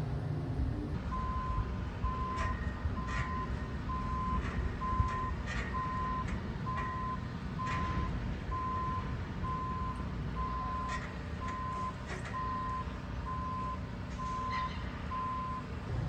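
Vehicle reversing alarm beeping at a steady pitch, about one beep a second, over a low outdoor rumble, with a few scattered light clicks.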